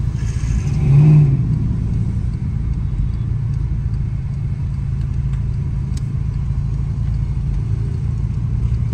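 Car engine and road noise heard from inside the cabin as a steady low drone while the car creeps forward in slow traffic, with a brief louder swell about a second in.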